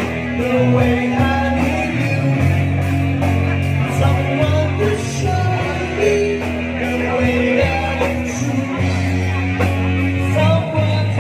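Background music: a song with singing over an instrumental backing.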